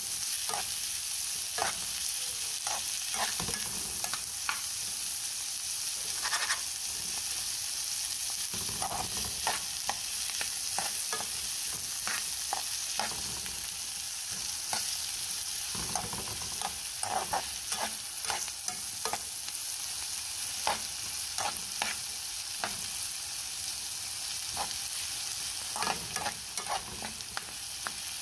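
Diced onions sizzling in oil in a metal frying pan, with a steady frying hiss. A metal spoon stirs them, scraping and clinking against the pan at irregular intervals.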